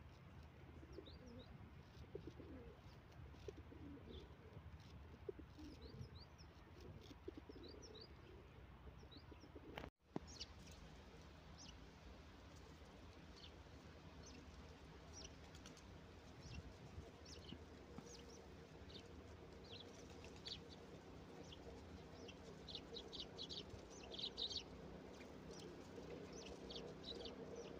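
Faint outdoor birdsong: many short, high chirps from small birds, thickening in the second half, with low cooing calls in the first part. The sound drops out briefly about ten seconds in.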